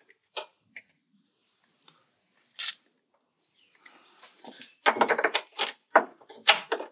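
Light metallic clicks and clinks of small hand tools and a cable terminal being worked, as the solar panel's black cable is fastened to the car's ground point. There are a few scattered ticks, a short sharp rattle about two and a half seconds in, and a denser run of quick clatters in the last two seconds.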